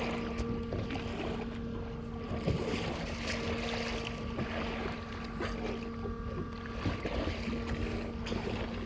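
Boat engine running steadily with a constant hum, over the wash of water and wind buffeting the microphone.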